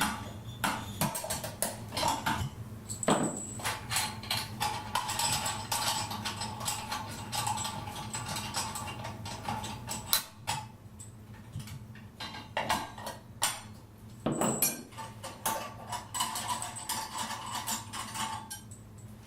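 Metal parts and hardware of a near-infrared sauna lamp base being handled, clinking and knocking together in a run of irregular clicks.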